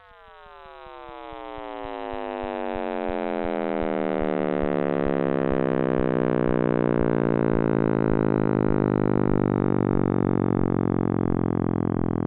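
Synthetic sonification of the Big Bang: a chord of many tones that fall steeply in pitch and grow louder over the first few seconds, then level off into a steady low drone, with faint regular ticking underneath.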